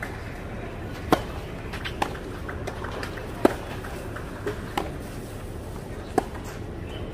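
Tennis rally on a clay court: racket strings striking the ball, about every one and a half seconds. Loud hits from the near player alternate with fainter hits from the far end, over a steady low background.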